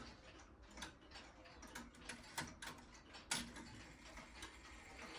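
Faint ticking and clicking from an early Mauthe German grandfather clock's time-and-strike movement, with a couple of sharper clicks about two and a half and three and a half seconds in.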